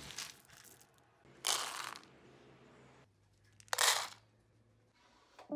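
Dry pet kibble scooped from a storage bin with a plastic scoop, then poured into a plastic bowl: two short rattling rushes of kibble, about two seconds apart.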